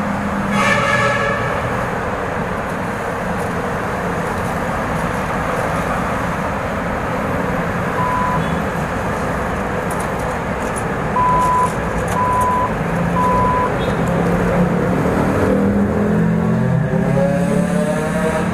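Motorcycle riding in traffic: steady engine and wind noise. Four short, even-pitched beeps come in the middle, and near the end the engine speeds up with a rising pitch.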